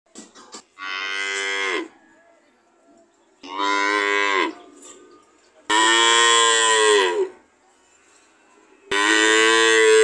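Cattle mooing: four long moos a couple of seconds apart, each about a second long and dropping in pitch as it ends.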